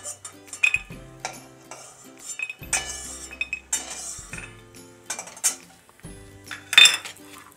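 Metal spatula clinking and scraping against a metal kadai and a steel bowl as fried bori are lifted out of the oil, in irregular short clinks, with a louder clatter near the end.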